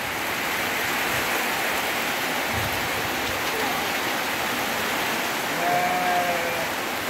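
Heavy rain falling steadily on vegetation, a dense even hiss, with some wind.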